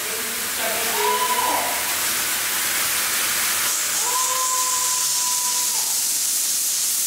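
Hand-held pressurised fire extinguishers discharging, a steady hiss of spray that grows stronger about four seconds in.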